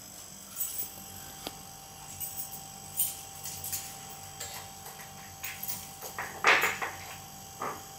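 Refrigerator compressor motor, converted to an airbrush air compressor, running with a steady hum while it pumps up its larger air tank, very quiet. Scattered light clicks and knocks sound over it, the loudest about six and a half seconds in.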